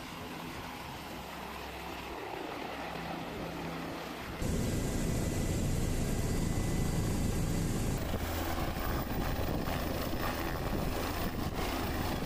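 Helicopter engine and rotor running, heard in three cuts. First from beside it on the ground. Then, from a little over four seconds in, louder from inside the cabin, with a steady high whine. Then, about eight seconds in, from a boat as the helicopter hovers close by.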